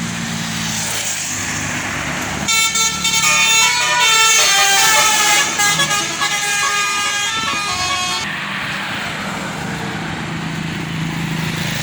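Bus telolet horn, a basuri multi-trumpet air horn, playing a quick tune of changing notes for about five and a half seconds, starting about two and a half seconds in. Bus engine and road traffic run underneath.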